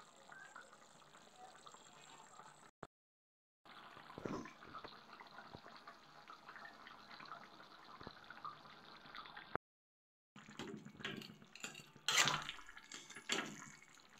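Curry gravy simmering faintly in a kadhai, with small bubbling pops, broken by short silent gaps. Near the end a spatula scrapes and knocks against the pan as the curry is stirred.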